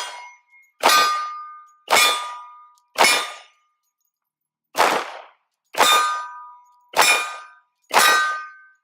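Glock 40 10mm pistol firing seven shots at about one a second, with a short pause midway. Each shot has a clanging metallic ring from struck steel targets, the pitch of the ring differing from shot to shot.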